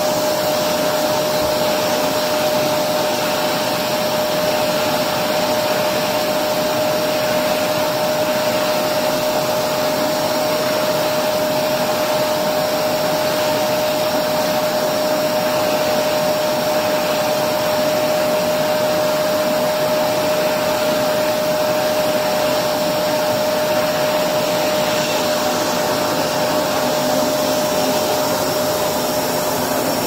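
Electrolux Precision bagless upright vacuum cleaner running steadily with its hose and wand in use: a constant rush of air with a steady high whine over it.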